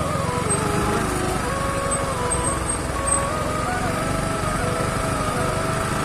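Yamaha R15 V3's single-cylinder engine running steadily while the bike is ridden, with faint music over it.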